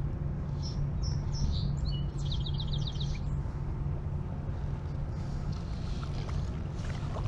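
A songbird sings a short phrase of high chirps ending in a quick trill of about seven notes, over a steady low rumble.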